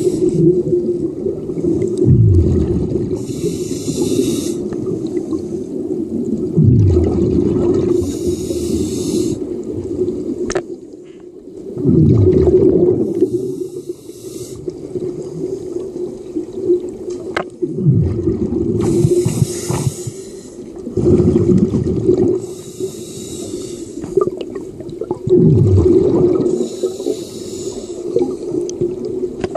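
Scuba diver breathing through a regulator underwater: a hiss on each inhale, then a low rush of bubbles on each exhale, about five breaths over a steady hum.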